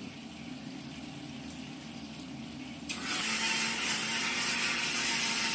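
Electric mixer grinder switched on about three seconds in, its motor whirring loudly with a faint steady whine as it grinds onions briefly to a coarse paste.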